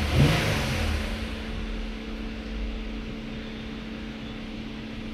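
Toyota Avalon V6 engine idling steadily, with a louder rush of noise in the first second or so that fades away. The cylinder 2 misfire is gone, so it is running evenly.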